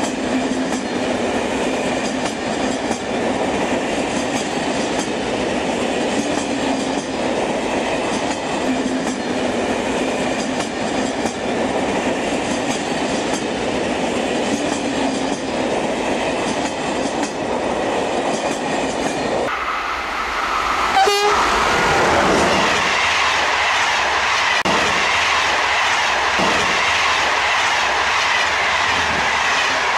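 Train rolling along the rails with a steady running noise. About two-thirds of the way through the sound changes abruptly and a brief horn toot is heard, followed by louder passing-train noise with a rhythmic clickety-clack.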